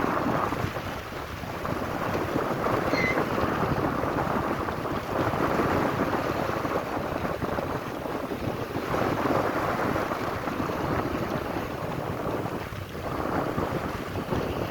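Strong wind rushing over the microphone at sea, swelling and easing in gusts, with the rough sea around a small fishing boat.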